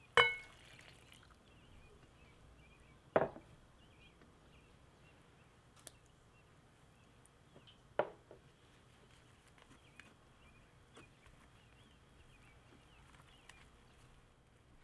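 Three sharp clinks of glass against a glass mixing bowl, the first ringing on briefly, about three seconds apart. Faint bird chirping runs underneath.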